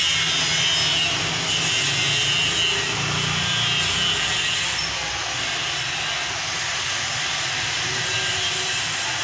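Steady street traffic noise, an even drone of motor vehicles with no single event standing out.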